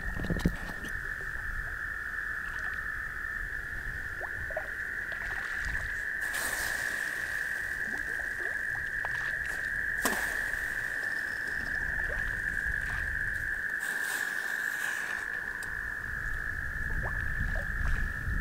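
A chorus of frogs calling from the lake, heard as one steady, unbroken high trill. There are a few brief rustles and a sharp click about ten seconds in.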